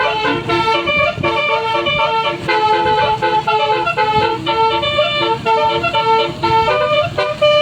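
A bus's multi-tone telolet basuri horn playing a quick tune of stepping notes, with a low rumble underneath.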